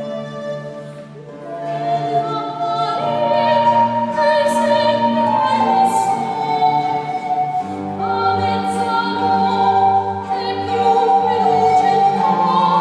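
Soprano singing an Italian Renaissance lauda, accompanied by recorder, viola da gamba and lute. The voice comes in after a brief softer moment about a second and a half in.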